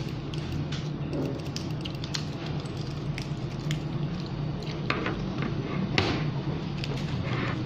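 A clear plastic bag of food crinkling and clicking as fingers pick through it, with a few sharper crackles about five and six seconds in, over a steady low hum.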